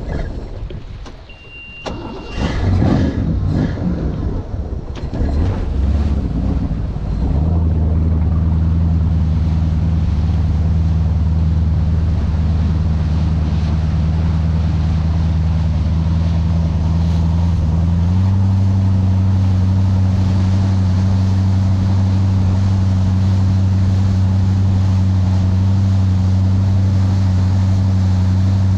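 Mastercraft Prostar 190 ski boat's inboard engine running as the boat pulls away and gets up to speed, with wind and water rushing past. After some irregular rushing and a few knocks, the engine settles into a loud, steady drone about seven seconds in, then steps up in pitch and level a little past the halfway point as the throttle opens further.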